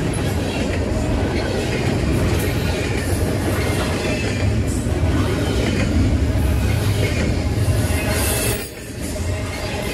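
Long freight train rolling past at track speed: a steady rumble of wheels on rail, with a brief dip in level near the end.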